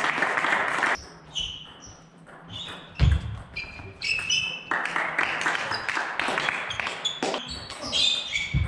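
Table tennis ball ticking off the bats and the table in a rally, short sharp pings with hall echo. There is one heavy thud, a player's foot stamping the floor, about three seconds in. Stretches of loud noise fill the hall at the start and again from about the middle.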